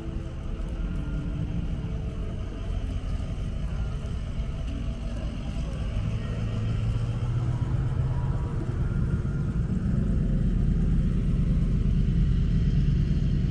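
Low rumble of a motor vehicle's engine, with a low hum that comes in about midway and grows steadily louder as the vehicle draws closer.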